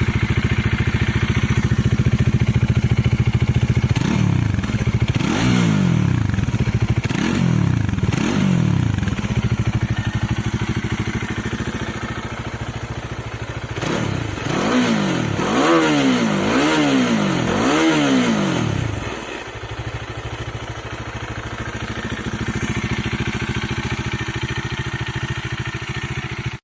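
Single-cylinder motorcycle engine on its stock exhaust, idling steadily and blipped with the throttle in two short series: about four quick revs a few seconds in, and about five more in the middle, each rising and falling back to idle. It settles back to idle and the sound cuts off suddenly at the end.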